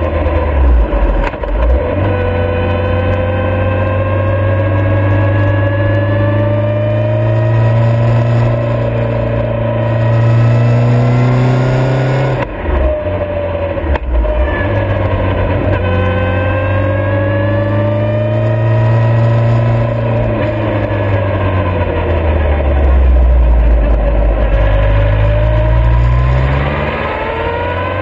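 Motorcycle engine running on the move, its pitch slowly sagging and climbing with the throttle. It breaks off briefly twice about halfway through, then rises near the end as it accelerates.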